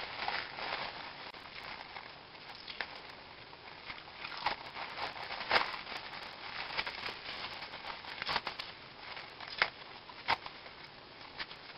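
Plastic cap crinkling and tearing as it is peeled out of a quick weave bob, with irregular sharp crackles.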